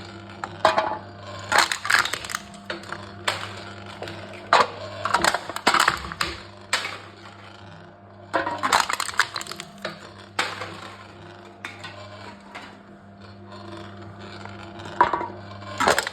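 Aluminium drink cans being crushed by a can-crushing machine: repeated bursts of crinkling, crackling metal, about a dozen, some short and some drawn out over half a second, with a steady low hum underneath.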